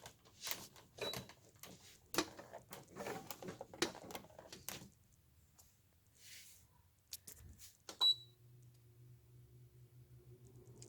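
Clicks and knocks of handling and plugging in a Haier 5000 BTU window air conditioner, then a short electronic beep about eight seconds in as it starts and its fan motor begins running with a low steady hum. The fan motor has new bearings, and there is no squeal.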